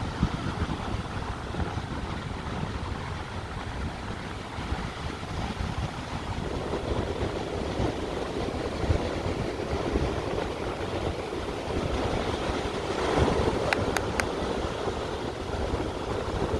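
Sea waves washing in and wind buffeting the microphone with a low rumble. The surf swells louder partway through, and there are three short clicks near the end.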